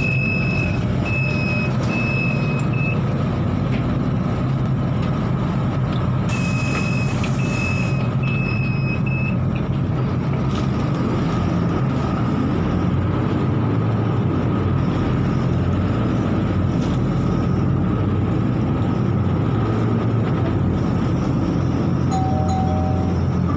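Cabin noise inside a Transjakarta city bus under way: a steady engine and road hum. Two runs of four short, high electronic beeps come at the start and again about six seconds in, the second run over a brief burst of hiss. A short lower tone sounds near the end.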